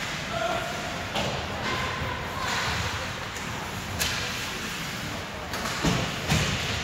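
Ice hockey game in an indoor rink: sticks, skates and puck on the ice with sharp knocks against the boards and glass, the loudest two thuds near the end, over a murmur of spectators.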